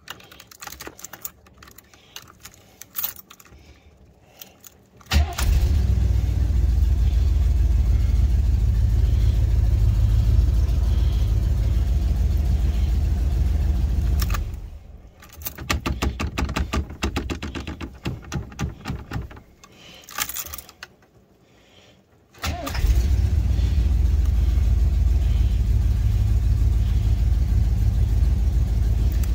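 1986 Chevrolet G30 motorhome engine on a cold start: keys jangle and click at the ignition, then the engine catches about five seconds in and runs loud and steady. It stops around fourteen seconds, and the starter cranks in rapid, even pulses for several seconds. After a short pause the engine fires again and runs steadily to the end.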